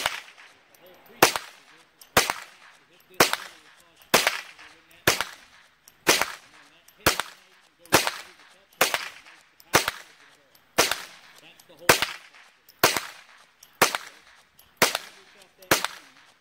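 GSG-522 semi-automatic .22 LR rifle fired in a steady string of sharp shots, about one a second, sixteen or so in all. Every round goes off with no light-primer-strike misfires, which is the sign that the rifle's misfire problem is fixed.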